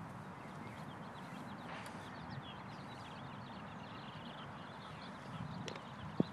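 Outdoor ambience: birds chirping in the background over a steady low outdoor noise, with one sharp click just before the end.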